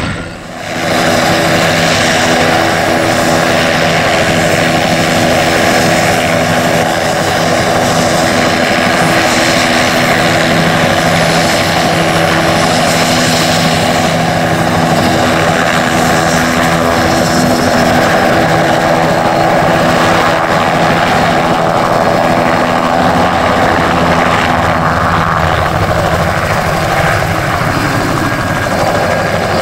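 Crop-dusting helicopter with spray booms running at close range: a loud, steady rotor and engine sound with a steady hum, whose pitch shifts a few seconds before the end.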